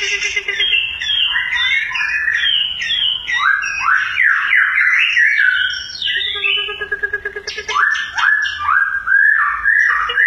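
Caged songbird singing a loud, varied song of quick whistled slurs and chattering notes, with a low buzzy rattle at the start and again about six seconds in.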